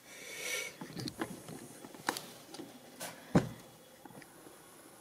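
Small handling noises on a workbench: a brief rustling slide, then several light clicks and knocks, the loudest about three and a half seconds in.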